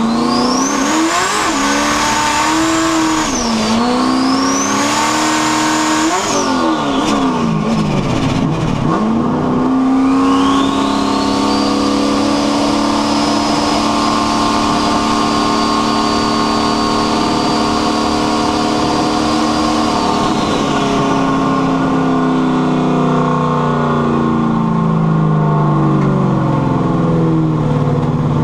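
Car engine with a rear-mounted turbocharger accelerating hard under boost, with a high turbo whine that climbs alongside it. About seven seconds in the revs drop away, then they build again and hold steady with the whine before easing off and falling through the last several seconds.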